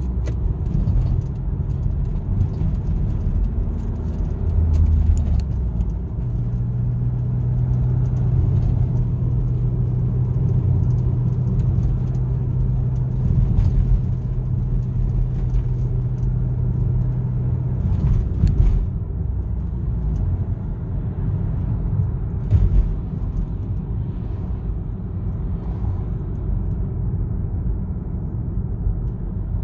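A car driving, with a low engine and road rumble. A steady engine hum holds one pitch from about a fifth of the way in to past the middle, and a few short knocks come after it.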